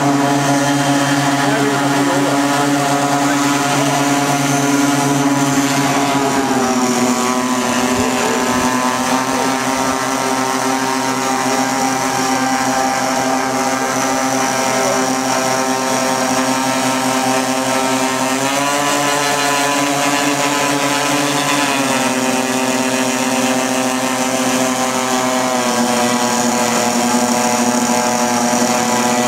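Engines of a large radio-controlled scale model Lockheed Super Constellation running as it taxis, a steady, loud engine note whose pitch steps down about six seconds in, rises again around eighteen seconds, and drops back a few seconds later.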